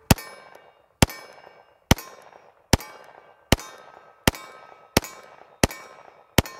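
Heckler & Koch Mk23 .45 ACP pistol fired unsuppressed in a steady string: nine shots, about one every three-quarters of a second, each trailing off in a ringing echo.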